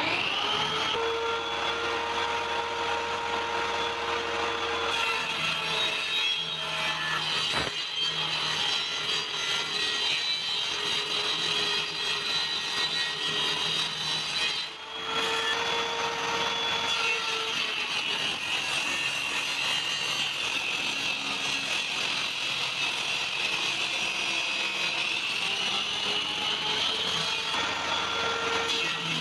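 Table saw running and ripping thin wooden strips fed through a push jig: a steady machine noise with a high whine that sags a little in pitch for several seconds in the second half.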